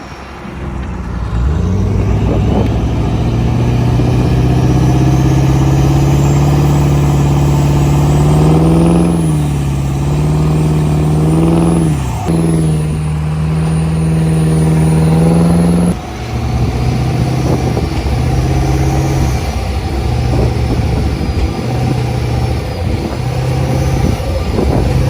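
Heavy truck engine revving hard under load, held at high revs with a couple of brief dips, then easing off about two-thirds through and blipped up and down repeatedly.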